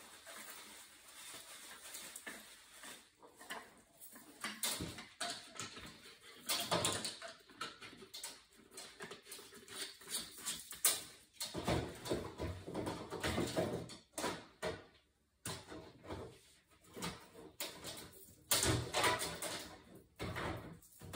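Hand-work noises at an open oil-fired boiler: irregular rustling and rubbing with scattered light knocks and clicks as parts are handled and wiped with a cloth.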